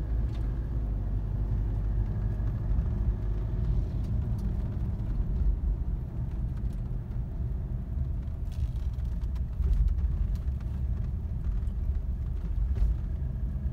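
Car cabin noise while driving: a steady low rumble of the engine and tyres on the road.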